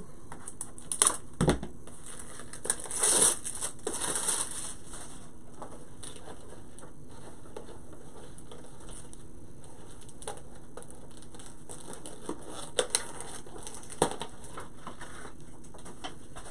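Ribbon rustling and crinkling as it is pulled from its spool and worked into loops by hand, with a few sharp clicks and knocks of handling. The busiest rustling comes about three to four seconds in, with long quieter stretches of faint hiss in between.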